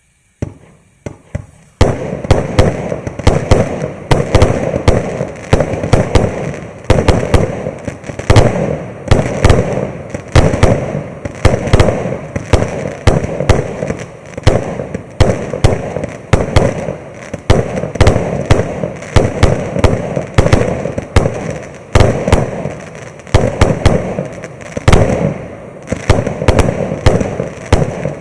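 A 200-shot firework cake of 0.8-inch calibre firing a continuous barrage of launches and bursting shells, several loud cracks a second. It opens with a few faint pops, and the steady barrage begins about two seconds in.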